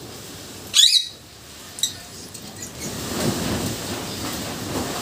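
Lovebird calls: one loud, sharp, pitch-bending squawk about a second in and a shorter, fainter chirp a second later. After that comes a steady low rustling noise.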